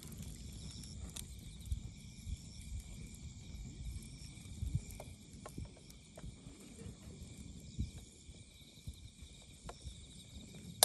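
Wood burning in a folding campfire pit, crackling with irregular sharp pops, over the steady high chirping of autumn night insects.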